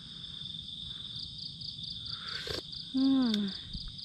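Crickets trill steadily and high-pitched throughout. About two and a half seconds in comes a brief sip, then a short, falling "aah" from a person savouring a mouthful of hot coffee.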